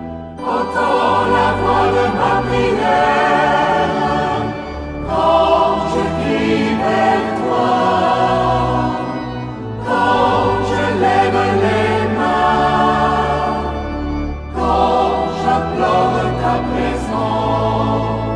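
A choir singing a slow hymn over sustained low accompaniment, in phrases of about five seconds with short breaks between them.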